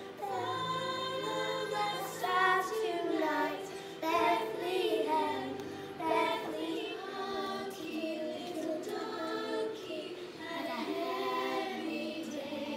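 Young children singing a Christmas song along with instrumental accompaniment.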